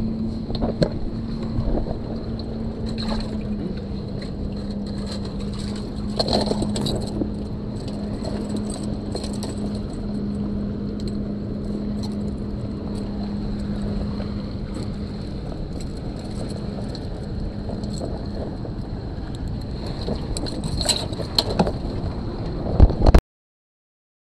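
Rumbling handling and clothing noise on a body-worn camera aboard a stationary fishing boat, with scattered knocks and a steady low hum that stops about three-quarters of the way through. The sound cuts off suddenly near the end.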